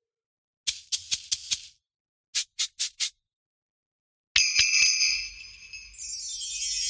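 Sampled percussion from the EZdrummer 3 Claustrophobic EZX library, played as separate short dry hits: a quick run of about five, then four more. About four and a half seconds in comes a louder hit that rings on, then a high shimmering swell that builds near the end.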